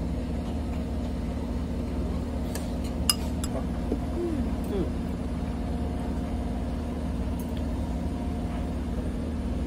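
Steady low machine hum, a motor or engine running without change, with light clinks of a metal fork against a ceramic bowl about two and a half and three seconds in.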